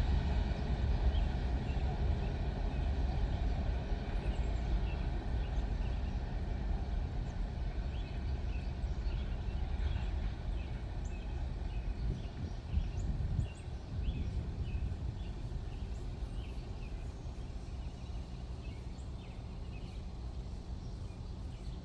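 Freight cars of a manifest train rolling past with a steady low rumble that slowly fades, dropping a little about two-thirds of the way through. Short high chirps are scattered throughout.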